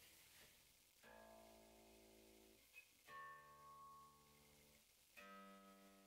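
Four-string bass guitar plucked one note at a time for tuning: three single notes about two seconds apart, each left to ring out. The notes are faint, since the tuner pedal mutes the amplified signal while it is active.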